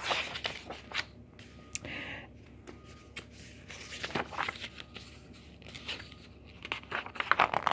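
Pages of a picture book being turned and handled: paper rustling and sliding, with scattered soft taps and clicks.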